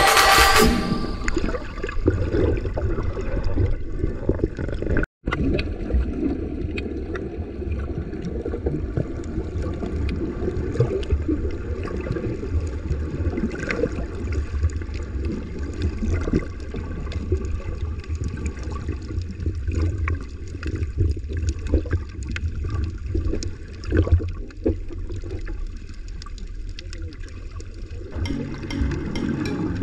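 Action camera held underwater while snorkeling: muffled water rushing and bubbling, with scattered clicks and crackles throughout.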